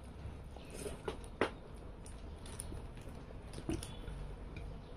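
A person chewing a mouthful of rice eaten by hand, with a few short clicks of the mouth.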